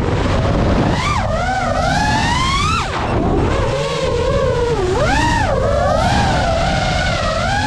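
FPV quadcopter's electric motors whining, the pitch swooping sharply up and down several times as the throttle changes through dives and turns, over a low rushing noise.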